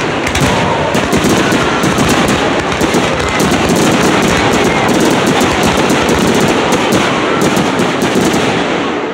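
Aerial fireworks bursting in a dense, rapid barrage: loud overlapping bangs and crackle with hardly a gap, thinning slightly near the end.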